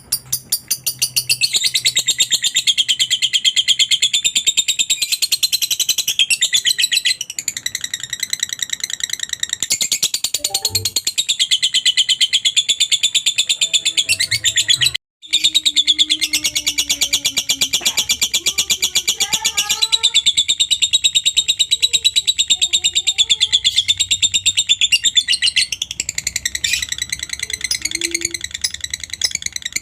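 Lovebird giving its long "ngekek" song: a fast, unbroken chatter of high-pitched notes. The chatter cuts out for a split second about halfway through, then carries on.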